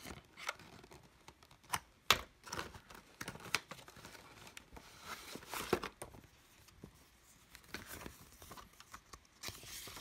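Unboxing handling noise: a coiled cable, a cardboard box and a folded paper quick start guide being lifted out and unfolded. Scattered rustles, scrapes and light taps, the sharpest a couple of clicks about two seconds in, with more paper rustling near the end.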